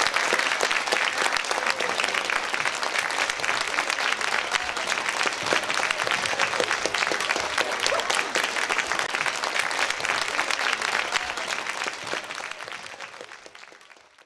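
Audience applauding at the end of a string orchestra piece, fading out near the end.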